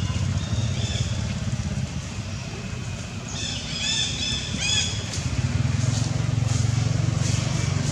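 A motor engine running steadily with an even low hum, getting louder about five seconds in, with a few short high chirps about halfway through.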